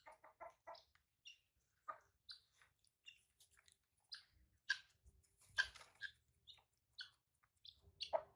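Faint, scattered short animal chirps and calls: a quick run of four in the first second, then sharp high chirps every half second or so, a few louder ones in the middle.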